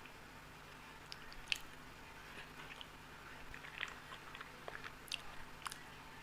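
Close-miked chewing of Indian sweets: scattered wet mouth clicks and smacks.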